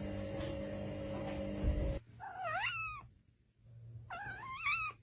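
A cat meowing twice, each meow under a second long, rising and then falling in pitch. Before the meows a steady low hum runs and cuts off abruptly about two seconds in.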